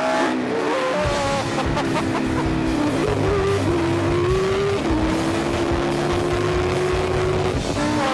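Three-seater Formula 1 car's 750-horsepower V10 engine running hard at speed, its pitch climbing slowly and dropping about five seconds in as from a gear change. Background music plays underneath.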